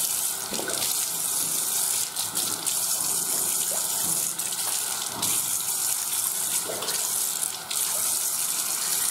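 Water tap running steadily into a bathroom sink, the stream splashing over hands being rinsed under it.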